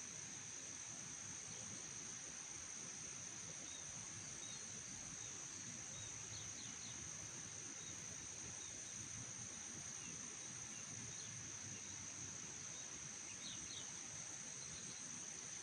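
Steady high-pitched insect trill, typical of crickets, with a few faint bird chirps.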